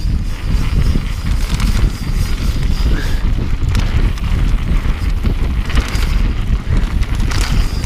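Mountain bike riding fast over a rough dirt singletrack: a continuous rumble of the tyres and rattle of the bike over bumps and stones, with scattered sharp knocks.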